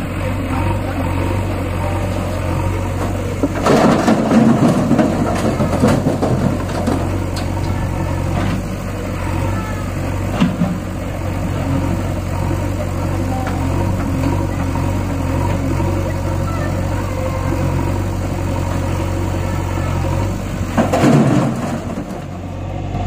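Four-cylinder diesel engine of a Mahindra 575 DI tractor running steadily at low speed. It grows louder and noisier for a couple of seconds about four seconds in, and again briefly near the end.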